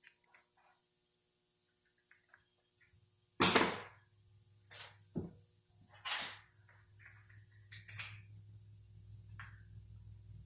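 Sharp metal clinks and knocks of transmission parts being handled on a workbench: one loud knock about three seconds in, then several lighter clicks spread over the rest. A faint low hum sets in with the first knock.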